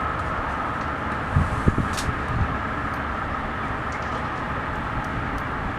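A train running along the track: a steady rumble of wheels on rails with a faint ringing tone above it.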